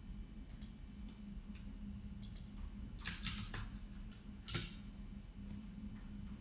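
Faint clicks of a computer keyboard and mouse: a few scattered clicks, a quick run of keystrokes about three seconds in, and one louder keystroke about four and a half seconds in, over a steady low hum.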